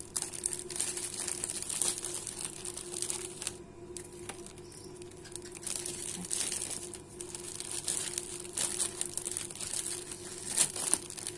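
Clear plastic bags crinkling and rustling as hands open them and pack bread and boxed drinks inside. The rustling comes in irregular handfuls, with a quieter pause about four seconds in.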